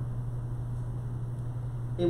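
A steady low hum under faint hiss: room tone in a pause in the speech.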